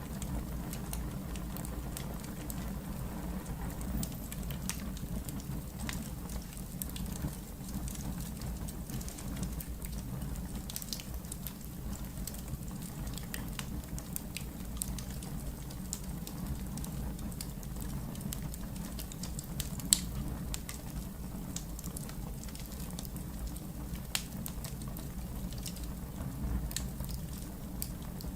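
Wood fire burning in a fireplace: a steady low rumble of the flames with frequent sharp crackles and pops of the burning logs, one much louder pop about twenty seconds in.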